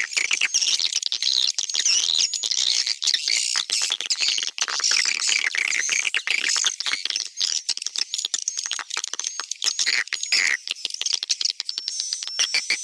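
Recorded edible-nest swiftlet calls played back as a swiftlet-house lure track. A 'tarik' (attracting) call is mixed in stereo with an 'inap' (roosting) call, giving a dense, continuous twittering of high chirps with many rapid clicks throughout.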